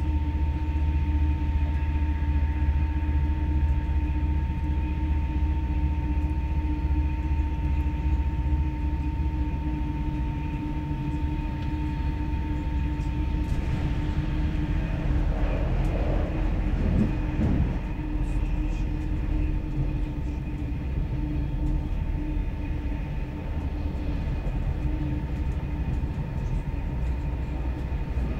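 Electric passenger train running at speed, heard from inside the carriage: a steady low rumble of wheels on rail with a steady whine over it. The noise changes briefly about halfway through.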